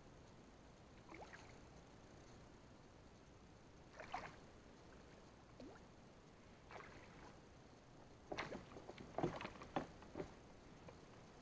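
Faint short splashes of water, scattered at first, then a quicker cluster of louder splashes near the end.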